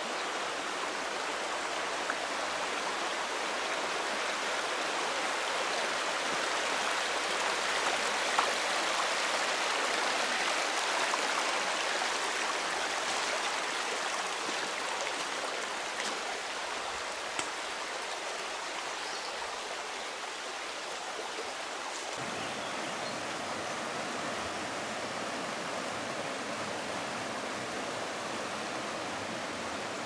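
Steady rush of running water from a stream or falls, swelling a little about ten seconds in.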